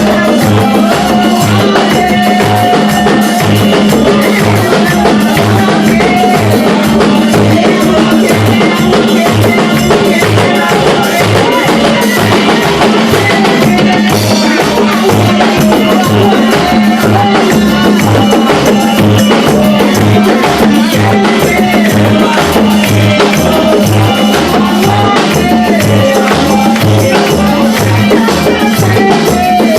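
Live church worship music from a band, with a steady kick-drum beat, percussion and a melody line running over it.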